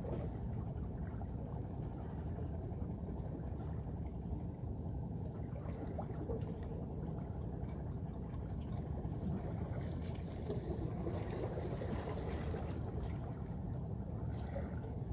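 Steady low rumble of wind and sea at a harbour breakwater, with a few faint clicks.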